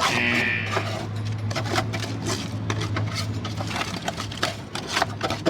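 Irregular clicks and rattles of sandy debris and junk being rummaged through and picked out of an old car's floor, over a steady low hum.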